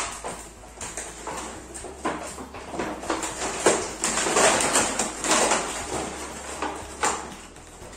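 Cardboard box and clear plastic toy packaging being handled and pulled apart: irregular rustling, scraping and crinkling in bursts, with a few sharp clacks.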